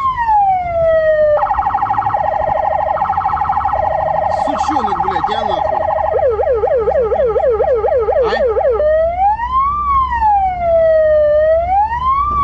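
Police car siren cycling through its modes: a slow rising-and-falling wail, a fast warbling pattern from about a second and a half in, a rapid yelp a few seconds later, and the slow wail again near the end, over a low rumble of engine and road.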